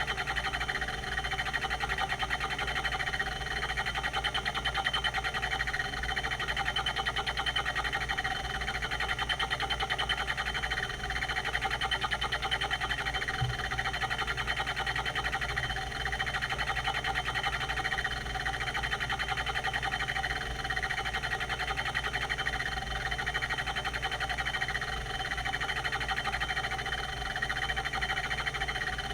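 Quantum Q540 5.25-inch hard drive running, its rotary voice-coil actuator seeking with a dense, rapid squeaking chatter over the steady whine of the spindle. The chatter swells and eases in a regular cycle about every second and a half.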